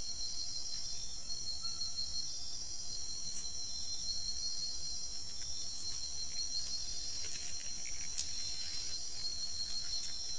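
Insect chorus: several insects trilling steadily at different high pitches, some in pulsing phrases. A few faint clicks and scrapes come about three quarters of the way through.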